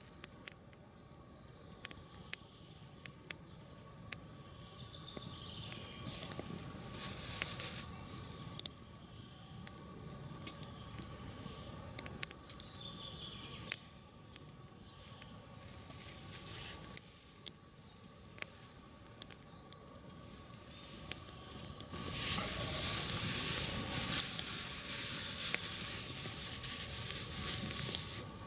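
Small portable wood-burning stove with the fire crackling, giving many sharp irregular pops over a steady hiss. For the last several seconds a louder rustling joins in as a plastic bag is handled.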